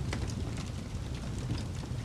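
Wood fire burning with a steady low roar and a few scattered sharp crackles.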